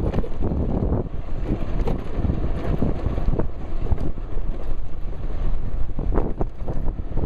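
Wind buffeting the microphone of a shirt-pocket camera on a moving electric bike: a steady low rumble that surges and dips with the gusts.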